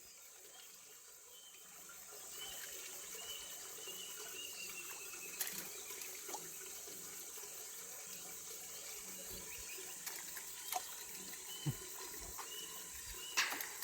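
Steady hiss like water, rising a little over the first couple of seconds, with a few faint short high chirps and occasional sharp clicks.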